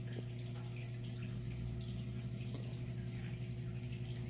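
A steady low hum with faint dripping and small ticks.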